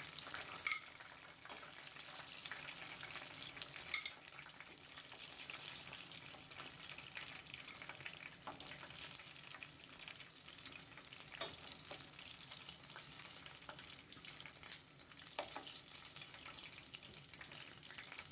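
Flour-coated chicken wings deep-frying in hot oil: a steady sizzle with scattered crackles and pops.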